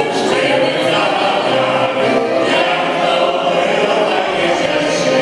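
Mixed group of men's and women's voices singing a song together, accompanied by violin and accordion.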